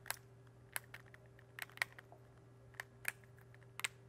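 Clicking from the torque-adjustment gears of an Atlas Copco LTV pneumatic clutch tool as a cross-point adjusting key is turned in them. There are about seven sharp, irregular clicks, some in quick pairs. Each click means the clutch torque setting is being changed, here raised.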